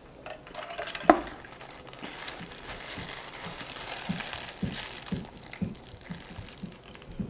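Paper wrapper crinkling around a fried chicken sandwich as it is handled and bitten, with one short sharp sound about a second in. From about four seconds in, close-up chewing sounds come about twice a second.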